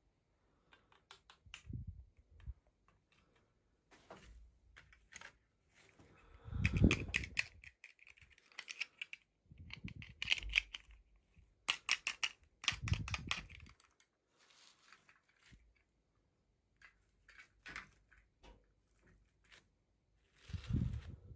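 Toy packaging being handled and opened by hand: an irregular run of small clicks and taps, crinkling and rustling, and soft knocks, with louder bursts now and then.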